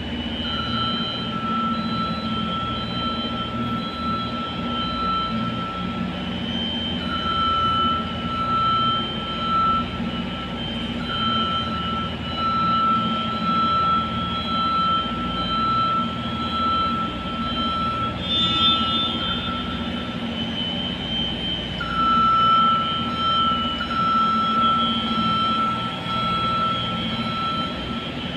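Heavy machinery running with a steady drone. Over it a high whine cuts in and out, lasting a few seconds each time.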